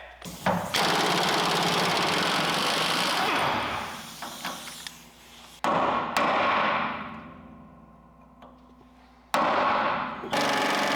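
Impact wrench hammering on a puller's forcing bolt to press the pitman arm off the steering gearbox shaft, in three bursts: one of about three seconds, then two shorter ones.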